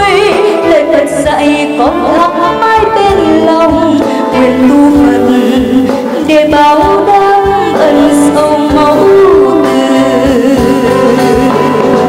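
A woman singing a Vietnamese song into a microphone over instrumental backing music, with long held and sliding notes.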